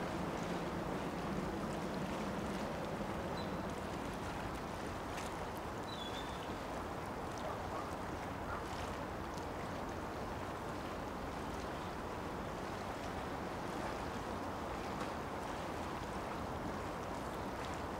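Steady outdoor waterfront ambience: an even wash of wind and water noise, with a few faint ticks and a brief faint high chirp about six seconds in.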